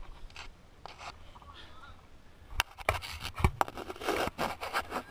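Scraping and rustling with several sharp clicks, starting about halfway through, as a stopped mountain biker handles the bike and his gear.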